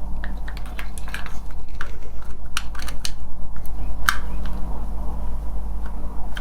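Small screwdriver working at a chewed-up screw head in a wireless car charger's back: irregular sharp clicks and scrapes as the bit catches and slips in the damaged head. A steady low hum runs underneath.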